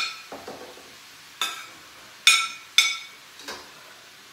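A utensil knocking against a ceramic plate in five sharp, ringing clinks as vegetables are scraped off it into a pan for stir-frying. The loudest clinks come at the start and a little past halfway.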